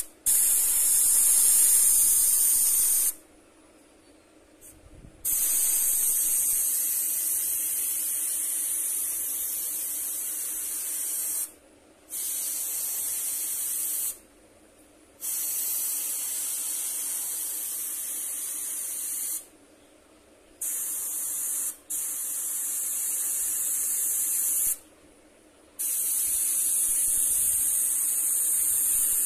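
Airbrush spraying paint with a steady hiss, in about seven bursts of a few seconds each, stopping for about a second between them.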